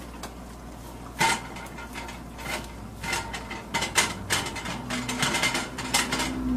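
Cast iron skillet being wiped out and shifted by its handle on an electric coil burner, metal scraping and rattling on the coil. A few separate knocks at first, then a dense run of rapid scrapes and clicks from about three seconds in.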